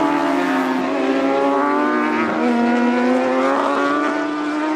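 Racing motorcycle engines running hard as the bikes pass through a corner, several engine notes overlapping. Their pitch drops about two seconds in as they slow for the bend, then climbs again as they accelerate out of it.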